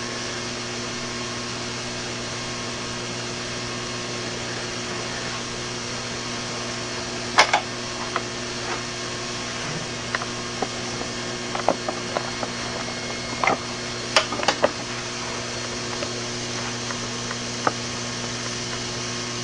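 HHO electrolysis cell with 304 stainless steel plates in baking-soda water, running at about 20 amps and fizzing steadily as it gives off gas, foaming up the jar. A steady electrical hum runs under it, with scattered small clicks and pops.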